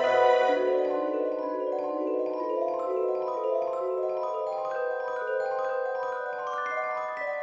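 Background music: mallet percussion playing a continuous run of ringing, overlapping notes, climbing to higher notes near the end.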